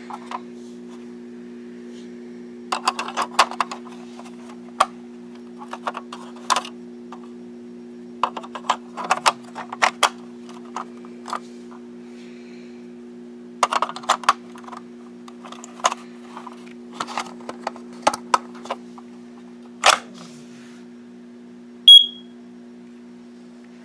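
Scattered clicks, knocks and rattles of handling over a steady low hum, then near the end one short, loud, high-pitched beep from a smoke alarm.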